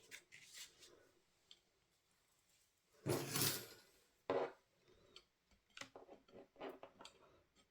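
Faint handling of craft tools and materials on a work table: a short scrape or rustle about three seconds in, another shorter one a second later, then a few light taps and clicks.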